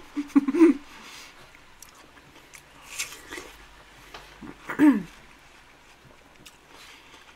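Biting into a slice of fresh watermelon and chewing it close to the microphone, with a short wet bite about three seconds in. Brief voice sounds come in the first second and again about five seconds in.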